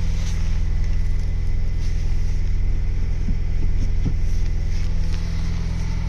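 Ford Bronco's 2.3-litre turbocharged four-cylinder engine running at a steady cold-start fast idle of about 1,200 rpm, a low even hum. The clutch is held in, so the transmission is still and sounds normal, with no grinding.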